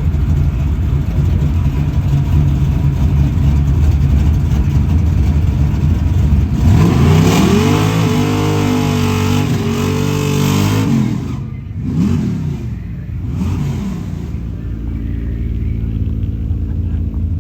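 Drag-racing street cars idling in the lanes, then an engine launching at full throttle about seven seconds in, revs climbing and held high for about four seconds before dropping off. Two short rev blips follow, then the engines settle back to idle.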